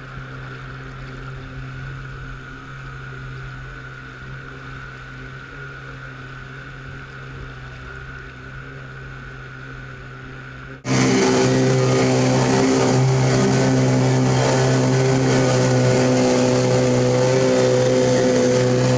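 Small outboard kicker motor running at a steady speed, driving a drum pontoon boat, with water rushing along the hull. About eleven seconds in, the sound jumps much louder, the motor nearer and the water noise heavier.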